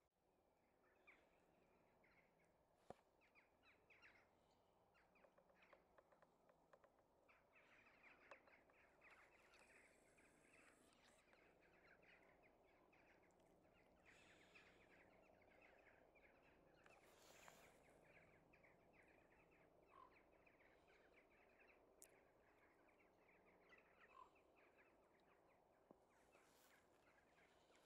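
A large flock of corvids calling faintly as it flies, a dense, unbroken chatter of short calls.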